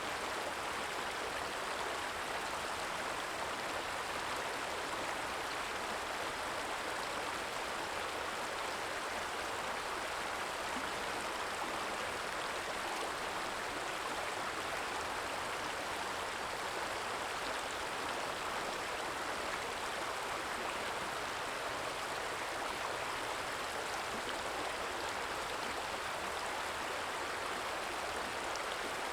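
Stream flowing steadily: a soft, even trickle of water that does not change.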